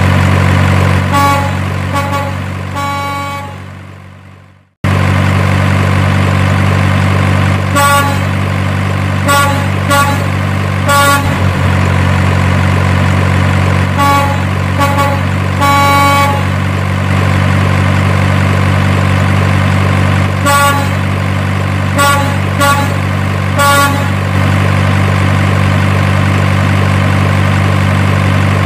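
Truck engine and horn sound effect: a steady low engine drone with short horn toots in groups of three or four every few seconds. About four seconds in the sound fades away and then starts again abruptly.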